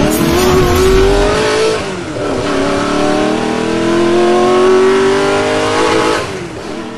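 Car engine accelerating hard, its pitch climbing, dropping as it shifts up a gear about two seconds in, then climbing again before fading out near the end.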